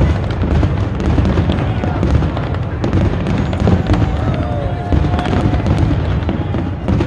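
Aerial fireworks going off in quick succession: a continuous run of deep booms mixed with sharp crackling.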